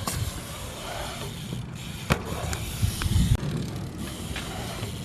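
Skate park background: wheels rolling on concrete under a steady noise, with a few sharp clacks and knocks from boards or bikes, the loudest a bit past three seconds in.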